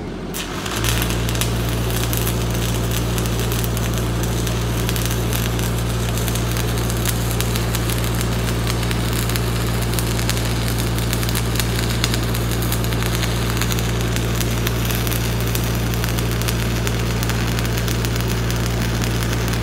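Stick welding arc with a 5/32-inch 6013 electrode, struck just before a second in and then crackling and sizzling steadily without a break, over a steady low hum. The welding machine is turned up above its 150 range.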